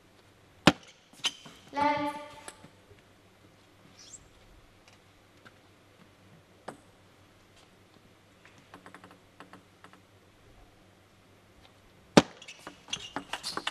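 Celluloid-type table tennis ball cracking off rubber bats and the table: two sharp hits about a second in, followed by a brief shout. Then a few faint ball taps in a lull, and near the end a serve and a fast run of ball strikes on bat and table.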